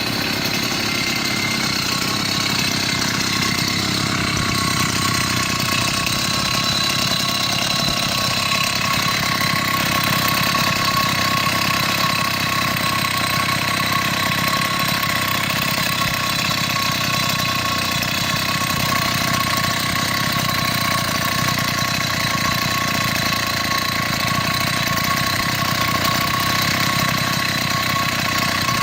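80cc two-stroke motorized-bicycle kit engine with a banana pipe exhaust running steadily at idle.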